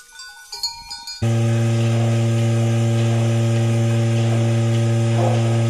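Goat bells clink faintly for about a second. Then a goat milking machine starts a loud, steady hum as a teat cup is put on a goat's teat, and keeps humming without change.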